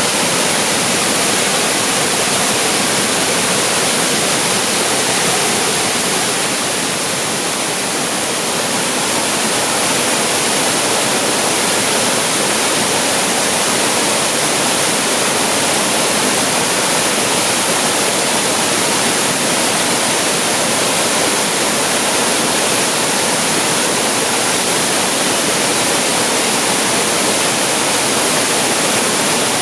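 Waterfall pouring out of a cave, a steady loud rush of falling water with a slight dip about seven seconds in.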